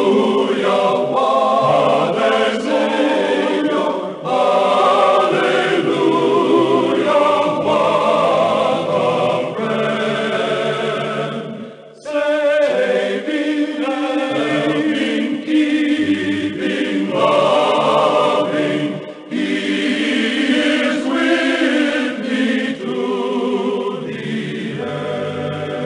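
A choir singing a hymn in several voices with vibrato, breaking briefly between phrases about twelve seconds in and again near nineteen seconds.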